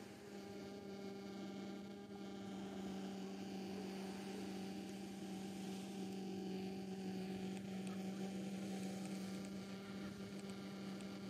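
Steady low hum with fainter higher overtones.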